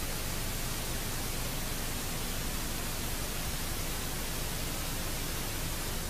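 Steady, even hiss like static, with no change in level and no distinct events.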